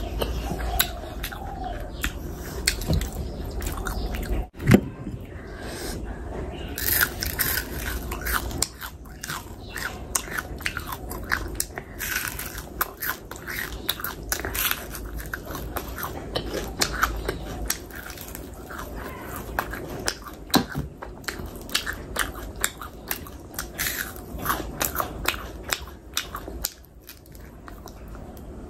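Close-miked eating: steady chewing and biting with irregular crunches and wet mouth sounds as fried fish is eaten by hand, with one louder sharp knock about five seconds in.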